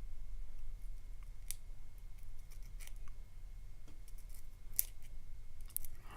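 Scattered small, sharp metallic clicks from a Yale euro lock cylinder being taken apart, as its brass pins, springs and plug are handled.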